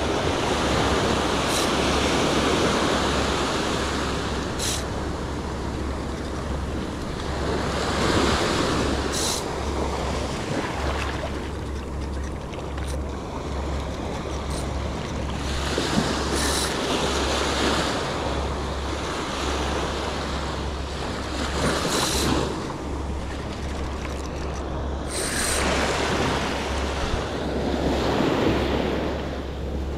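Ocean surf breaking on a beach, the wash swelling and fading every few seconds, with wind rumbling on the microphone.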